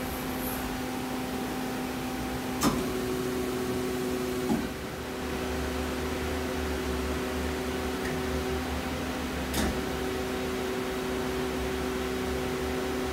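Steady hum of a powered-up Femco HL-55S CNC lathe at rest, made up of a few held tones. A deeper rumble joins about five seconds in, and a few sharp clicks come through.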